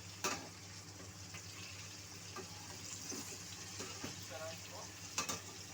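A pan of tomatoes cooking on the stove with a steady hiss. Two sharp knocks come through it, one just after the start and one near the end.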